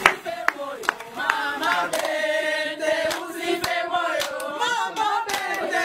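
A group of people singing together in chorus, with scattered sharp hand claps.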